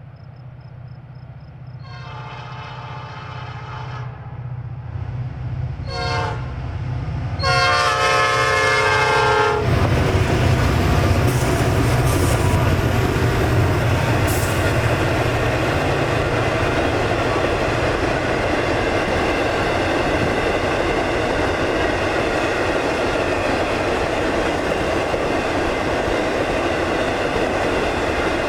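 EMD diesel locomotive approaching with its engine running and sounding its air horn: a long blast, a short one, then another long blast. From about ten seconds in the train passes close by with a loud steady rumble of engines and wheels on rail.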